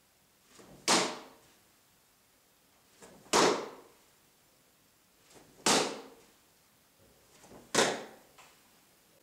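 Four outside crescent kicks in a row, about every two and a half seconds: each a brief swish of the leg and loose trousers through the air ending in a sharp snap.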